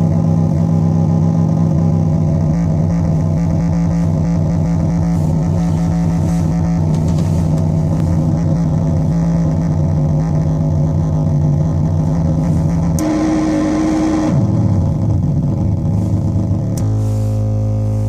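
Metsään Dirty Drone Anarchy synthesizer, a drone/noise synth of three interacting triangle-wave oscillators, sounding a steady low buzzing drone broken up by a fast, uneven stutter. About 13 seconds in it switches abruptly to a higher tone that slides downward, and near the end it settles into a new, lower steady buzz.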